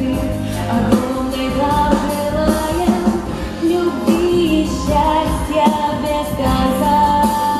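Pop song with a steady beat, a voice singing long held notes over the backing track.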